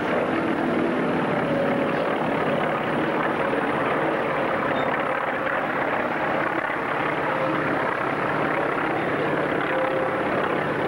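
Propeller aircraft engines droning steadily as planes fly over, under a constant open-air hiss.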